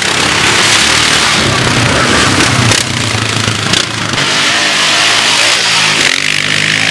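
Quad bike (ATV) engines revving and running at shifting speed, over a loud steady hiss.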